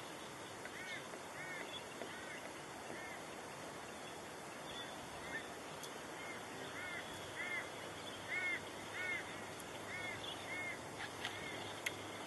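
A bird calling over and over: short rising-and-falling notes, about two a second in runs, over a steady background hiss.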